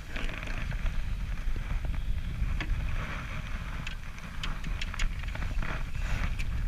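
Wind buffeting the microphone with a steady low rumble, with a handful of sharp taps and clicks over it.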